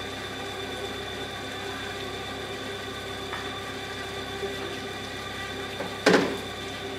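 A fire engine's pump running with a steady mechanical drone and a thin high whine, as water is pumped through large suction hoses. A sudden loud knock cuts in once, about six seconds in.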